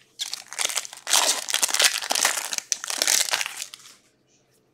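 Foil wrapper of a hockey card pack crinkling and crackling as it is opened by hand, for about three and a half seconds, then stopping.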